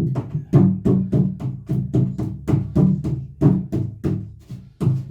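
Background music with a steady percussive beat, about four strikes a second, over a low bass line.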